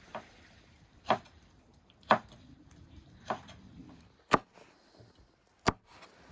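A blade chopping down onto a wooden board or block: six sharp, separate strikes about a second apart, the first one lighter.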